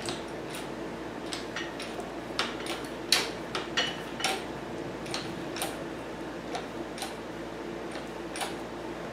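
Hand-pumped shop press being worked, with irregular sharp metallic clicks and ticks over a steady low hum, as the ram squeezes a motorcycle crankshaft flywheel onto its crank pin.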